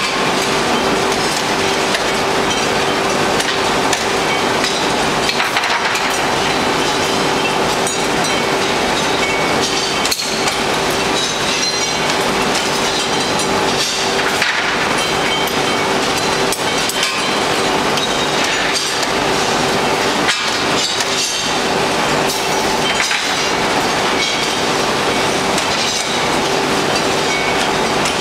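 Steady, loud din of a leaf spring quenching machine and its workshop: a constant hum with irregular metal clanks as hot leaf springs are handled with tongs and loaded into the press.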